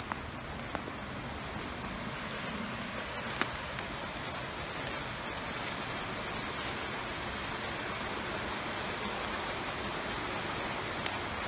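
Steady rush of a river, growing slightly louder, with a few faint sharp clicks.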